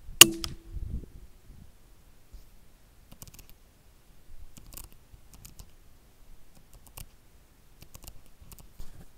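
A single rifle shot: a sharp crack with a brief ring, followed a moment later by a dull thud of the hit on the rabbit. After it, only faint scattered clicks and rustles.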